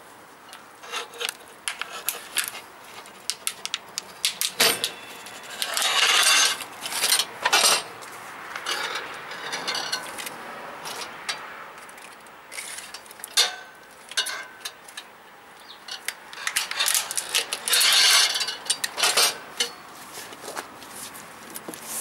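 Manual tyre-changer stand's bead breaker being levered against a motorcycle front tyre to break the bead: metal clinks and knocks from the bar and stand, with two longer scraping stretches of a couple of seconds each, about a quarter of the way in and again near the end.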